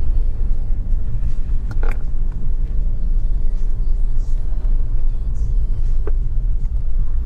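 Cabin noise of a Ford Focus ST driving over a rough dirt road: a steady low rumble from the tyres and running gear, with a few sharp clunks from bumps about two seconds in and again about six seconds in.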